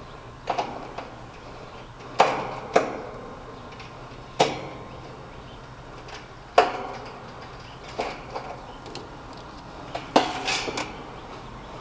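Sharp metallic clanks and clinks, about eight of them spaced a second or two apart with a quick cluster near the end, as tools and metal parts of an HVAC unit are handled and set down during disassembly.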